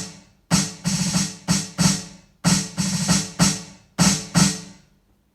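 Snare drum sound from an electronic drum kit's snare pad, played as a short rhythmic pattern of a dozen or so quick hits in little flurries, stopping about four and a half seconds in.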